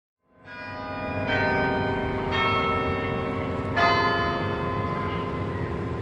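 Church bells ringing, fading in over the first second, with a fresh strike every second or so over a steady low rumble.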